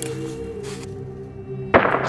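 Background music of sustained low notes, cut through near the end by one sudden loud crack, in the style of a dubbed-in gunshot effect.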